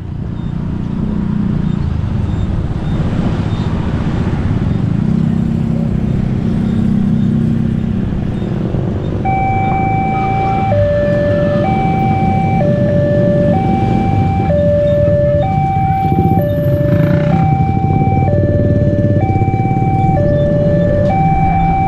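Motorcycles and road traffic running over the crossing. About nine seconds in, the railway level crossing's electronic warning alarm starts: two tones alternating high and low, each held about a second, over the continuing traffic. It warns that a train is approaching and the barriers are coming down.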